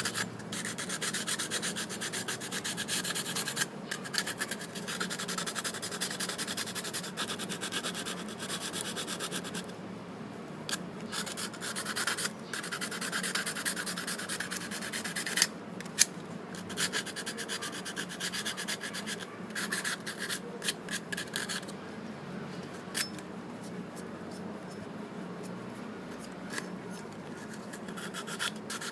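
Sandpaper rubbed by hand on the metal outside of a motorcycle front brake master cylinder: quick back-and-forth sanding strokes in runs with short breaks, turning to scattered light scrapes near the end.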